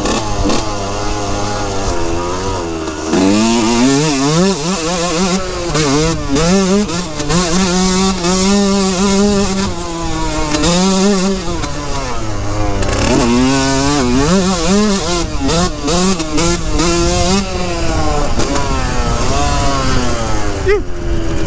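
2003 Yamaha YZ125's two-stroke single-cylinder engine under way on a dirt trail, its pitch climbing and dropping back again and again as the throttle is rolled on and off.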